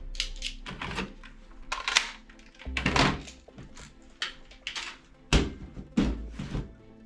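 Irregular clicks and knocks, some with a low thud, from toy guns being handled, over background music.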